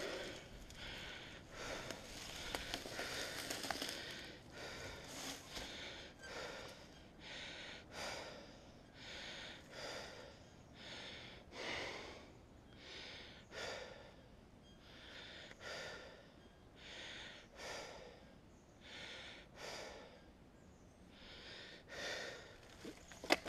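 Heavy rhythmic breathing while moving along a forest trail, one breath roughly every second in an even, repeating pattern.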